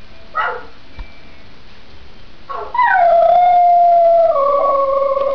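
Siberian husky howling: a short falling yelp about half a second in, then one long, loud howl from about two and a half seconds in that drops slightly in pitch partway through and carries on past the end.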